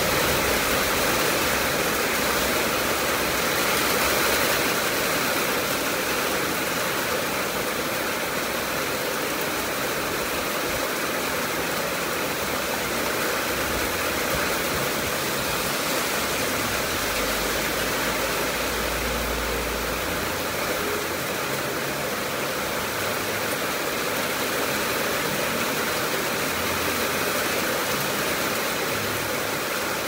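Heavy rain falling steadily, with runoff streaming off the edge of a roof, an even hiss throughout. A low rumble rises briefly about two-thirds of the way in.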